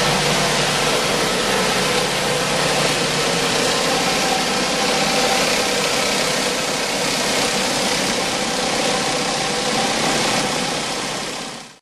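Pressure washer running steadily, with the spray hiss of an 18-inch rotary surface cleaner working a wet floor. The sound fades out near the end.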